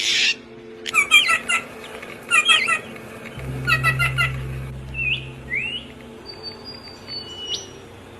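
Songbirds calling. A harsh rasping call opens, then three quick bursts of chirps about a second and a half apart, followed by short rising whistles and thin high whistled notes.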